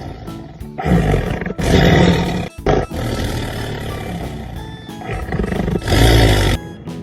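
A big cat roaring several times over background music, each roar a loud rough burst lasting under a second.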